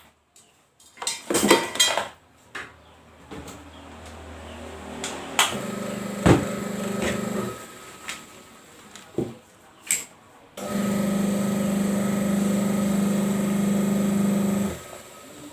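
Washing machine electric motor switched on for a test after a motor swap, running with a steady hum for about four seconds before cutting off abruptly. Knocks and metal clatter from handling the machine come before it.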